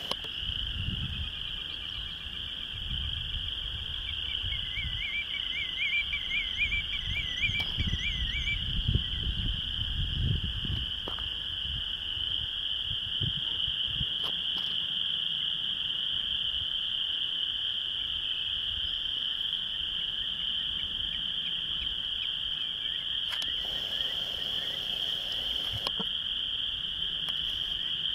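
A steady high-pitched chorus of calling frogs, the loudest sound. From about five to eight and a half seconds in, a willet gives a rapid series of wavering calls, and wind rumbles on the microphone during the first ten seconds.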